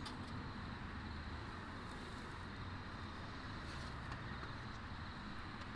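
Steady outdoor background noise: a low rumble with a faint hiss over it and no distinct knocks or clinks.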